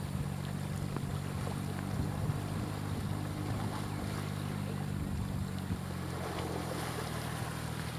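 Low, steady engine-like drone, made of several held low tones that weaken somewhat after the middle, over the rush of fast-flowing river water and wind noise on the microphone.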